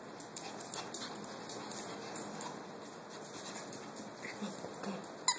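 Maltese puppy moving about close to the microphone on bedsheets: faint rustling with small mouth and snuffling sounds. A sharp click comes near the end.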